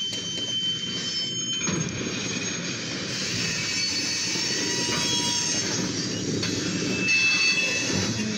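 Covered grain hopper cars of a freight train rolling past, a steady rumble of wheels on rail with thin high wheel squeals that come and go. Heard through the windshield from inside a car.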